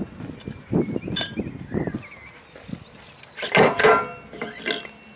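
Metal clanks and scraping as a steel drum axle is worked through a cable drum's hub and a collar is fitted onto it by hand. There is a ringing clink about a second in, and a louder grating, squeaky scrape a little past halfway.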